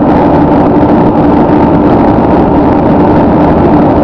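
Steady road and engine noise inside a car cruising at highway speed. It is loud and even throughout, with a constant low hum running under it.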